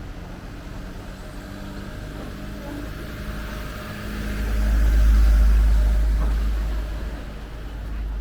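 Engine and road noise of a moving motorhome, a steady hum; about halfway through a deep low rumble swells up and fades away again.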